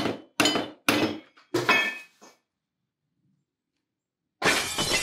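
A hammer striking a go-kart axle hub to drive it off the steel axle: four sharp metallic blows at uneven spacing, each ringing briefly. About four and a half seconds in comes a loud noisy burst with several falling tones.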